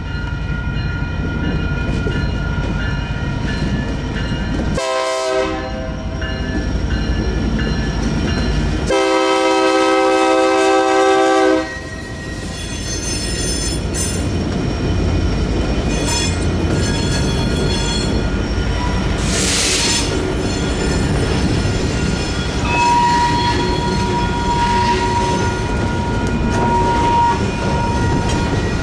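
Union Pacific SD59MX diesel locomotive sounding its horn, a short blast about five seconds in and a longer one about nine seconds in. Under it the locomotive's diesel engine rumbles steadily and the crossing's bells keep ringing.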